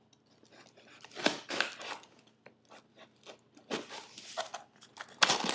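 A knife cutting through packing tape and cardboard on a shipping box: a handful of short scraping, crackling cuts with light clicks and knocks between.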